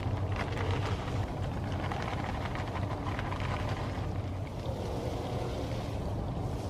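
Steady splash and trickle of running water over a low hum, from the garden's tiered fountain and a hose watering the bed.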